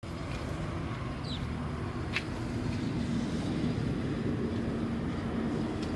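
Steady low vehicle rumble with a faint steady hum, outdoors, and a single sharp click about two seconds in.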